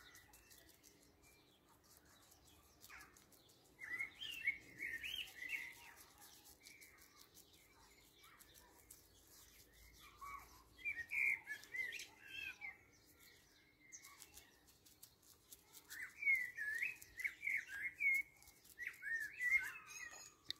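A songbird singing in short, quick warbling phrases, three or four bursts with pauses between them.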